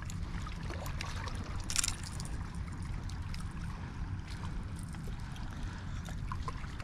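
Small waves lapping against the rocks of a breakwater under a steady low rumble, with a few small clicks and one sharper click about two seconds in.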